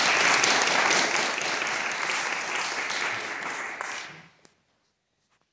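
Audience applauding a performer coming onstage, dying away about four seconds in. A couple of faint clicks follow in the quiet.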